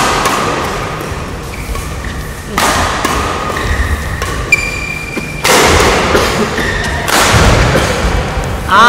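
Badminton rally on an indoor court: four sharp racket strikes on the shuttlecock, each ringing on in the hall's echo, with brief high shoe squeaks on the court floor between them. Near the end comes a loud shout from a player as the rally ends.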